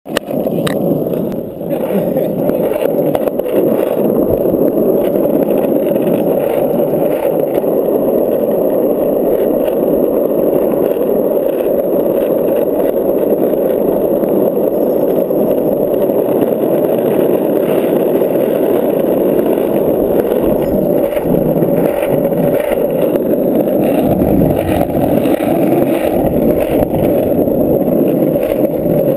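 Skateboard wheels rolling without a break down an asphalt road: a steady, loud rumble.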